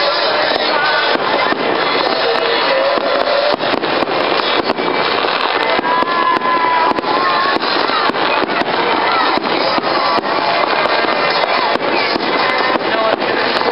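Fireworks crackling and popping in rapid succession, with music playing at the same time.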